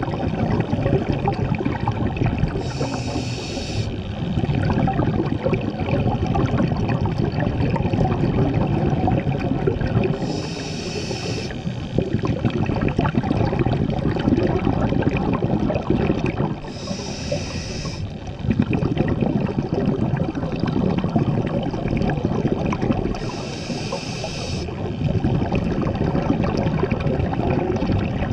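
Scuba diver breathing through a regulator underwater: four hissing inhalations about six to seven seconds apart, each followed by a longer spell of bubbling as the breath is let out.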